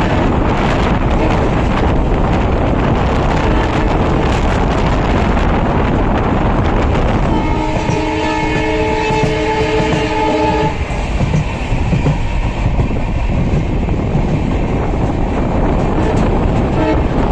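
WDP4B diesel locomotive and its train running, with a steady rumble and wheel clatter on the rails. Its horn sounds one long chord lasting about three seconds, starting a little past the middle.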